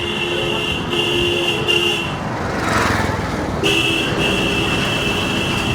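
Busy street traffic with vehicle horns honking in long, held blasts that break off about two seconds in and start again over a second later, over constant engine and road noise. A short rushing noise fills the gap between the honks.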